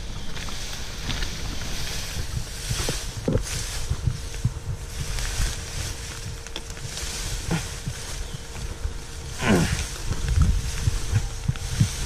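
Tall grass rustling and brushing against the microphone as someone wades through it, over a low wind rumble on the microphone. There is a short falling sound about nine and a half seconds in.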